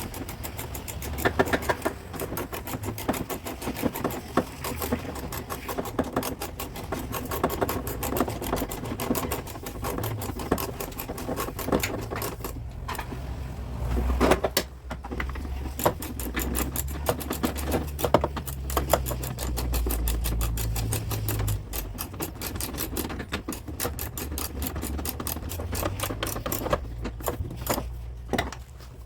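Rapid, light hammer taps on a car's sheet-metal body panel, many strikes a second, as dents are tapped out and the panel smoothed.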